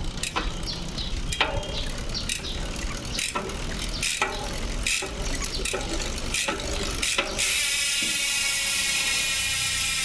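HASSNS PRO4 six-pawl, 120-engagement mountain-bike rear hub: a few scattered clicks over a low rumble, then about seven seconds in the freehub ratchet starts a continuous high-pitched buzz as the wheel freewheels.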